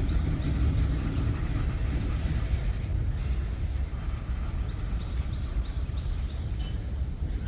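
Covered hopper cars of a CSX freight train rolling past, a steady low rumble of steel wheels on rail.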